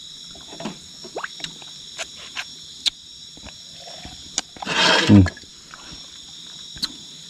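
Steady chirring of night insects such as crickets, with scattered small sharp clicks. About five seconds in, a person makes a loud breathy sound that ends in a short low grunt.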